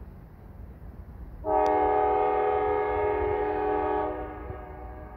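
Nathan K5LA five-chime air horn on a Norfolk Southern freight locomotive sounding one long blast for the crossing. It starts about a second and a half in, holds for about two and a half seconds, then fades out over another second.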